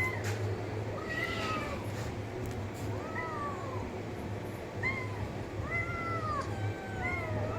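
A cat meowing repeatedly: about five separate meows, each rising then falling in pitch, over a steady low hum.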